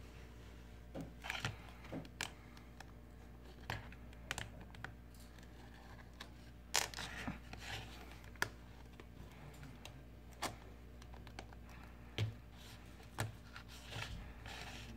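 Irregular small clicks and scrapes of a pry tool working under a Nokia Lumia smartphone's glued-in LCD to lift it from its plastic frame, over a steady low hum.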